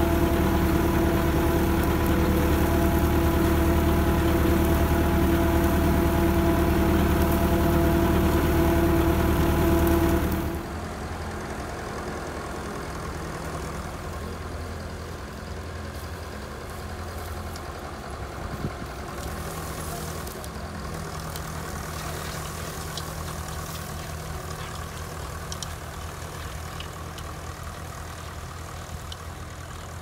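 Tractor engine running steadily while it pulls a mounted plough through stubble, loud and close at first. About ten seconds in it drops abruptly to a quieter, rougher engine sound with a few faint clicks.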